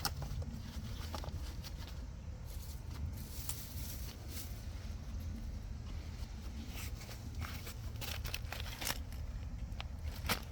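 Scattered crunches, rustles and light knocks of soil and potatoes being dug up and handled, over a steady low rumble.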